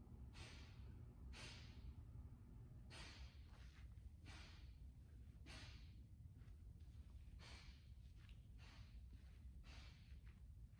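A man's faint, sharp exhalations, about eight or nine spread evenly at roughly one every second or so, as he works through one-dumbbell overhead presses and walking lunges.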